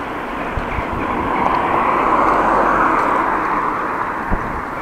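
A vehicle passing on the road: a steady rushing noise that swells to a peak midway and fades again.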